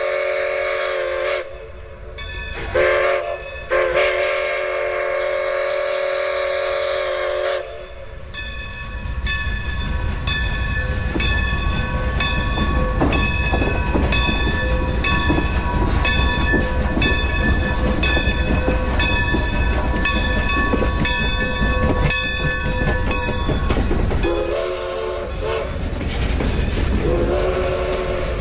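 Whistle of the 1924 Baldwin steam locomotive Santa Maria Valley #205 sounding a long blast, a short blast and another long blast. The train then passes with a heavy low rumble and a steady rhythmic clanging. The whistle sounds again near the end.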